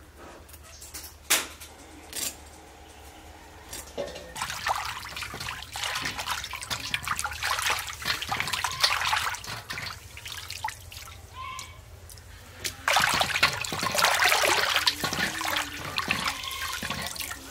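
Water splashing and pouring in two spells, the first starting about four seconds in and the second about thirteen seconds in, with a few scattered clicks before them.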